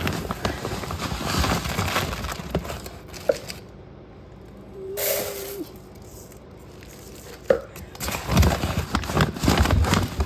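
Crinkling and rustling of a plastic rice bag being handled, with clattering kitchen handling noises; it goes quieter for a couple of seconds in the middle, where there are a couple of sharp clicks and a short steady hum.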